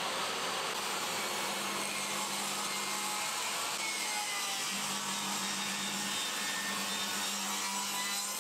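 Table saw running steadily with its blade ripping thin strips of sapele.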